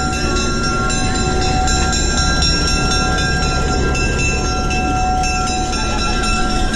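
Diesel-electric switcher locomotive running as it rolls past at close range during a run-around move: a steady, loud engine rumble with a few held tones over it.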